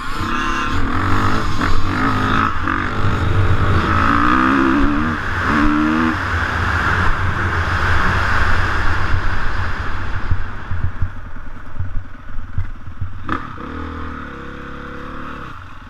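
Dirt bike engine running hard under throttle, its pitch climbing and dropping as it revs through the gears, then settling lower near the end. A single sharp knock sounds shortly before it settles.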